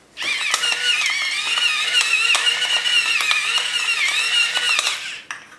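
Electric pepper mill grinding pepper over a salad bowl: a steady motor whine that wavers slightly in pitch, with peppercorns crackling through it. It starts just after the beginning and stops about five seconds in.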